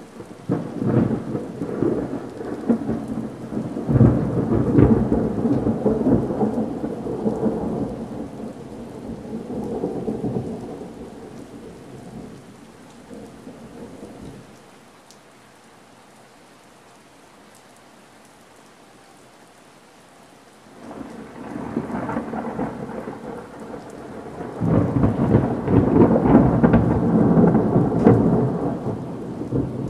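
Thunder rolling after a lightning strike: a long rumble with crackles begins under a second in, is loudest around four to six seconds in and dies away by about fourteen seconds. Steady rain follows for several seconds, then a second roll of thunder builds from about twenty-one seconds in and is loudest near the end.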